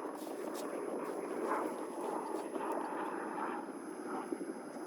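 Steady crunching and scraping in deep fresh snow, without clear separate strokes.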